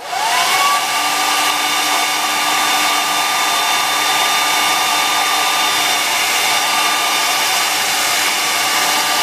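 Hair dryer switched on, its motor whine rising over the first half second and then running steadily with a rush of air. It is blowing hot air on a stiff plastic action-figure joint to soften it.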